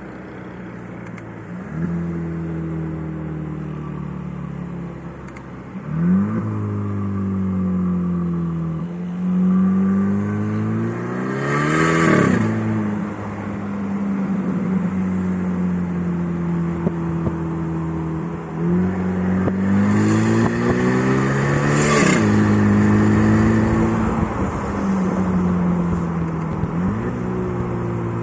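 Fiat Toro's 1.3 turbo four-cylinder engine with a diffuser on the exhaust, settling between several throttle blips and longer revs. The two biggest revs climb for a few seconds, about halfway through and again near the end, and each ends with a short rushing burst as the revs drop.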